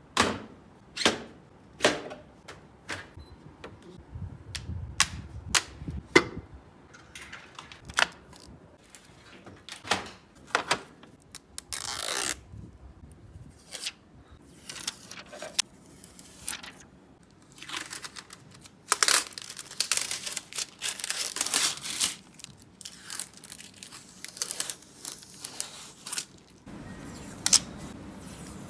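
Hands assembling a PC: irregular sharp clicks and taps as parts are handled and fitted, with a few longer stretches of rustling and tearing, like packaging being handled. A low steady hum comes in near the end.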